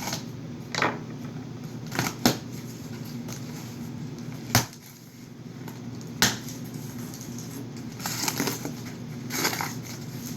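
A taped cardboard shipping box being handled and opened: about five sharp knocks and clicks in the first six seconds, then two longer rustling scrapes near the end.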